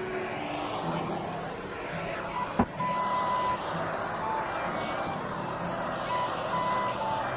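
Handheld gas blowtorch flame hissing steadily as it plays over a wooden shaft, under background music of held electronic tones that step between pitches. One sharp click about two and a half seconds in.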